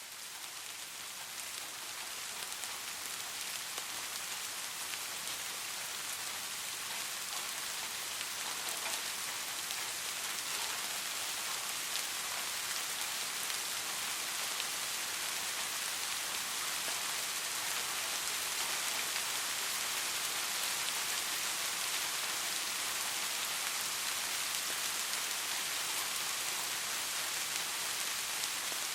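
Soft, steady rain falling on a surface, a fine even patter of many small drops. It fades in over the first few seconds, then holds steady.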